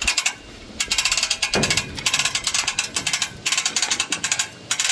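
Rapid metallic ratcheting clicks in three bursts of about a second each, the last near the end.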